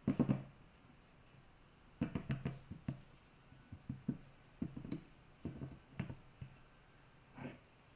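A marble rolling pin rolled over the rim of a fluted metal tart tin on a marble board, trimming off excess chocolate tart dough: several groups of short, light knocks and taps.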